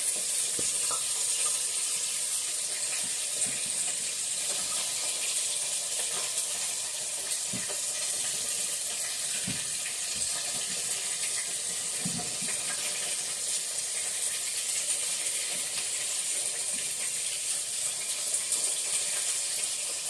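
Battered food frying in hot oil in a pan: a steady sizzling hiss, with a few faint knocks.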